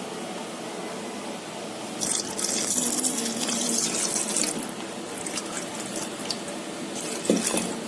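Water running from a tap into a sink for a couple of seconds, starting about two seconds in, then dripping and splashing with a sharp knock near the end.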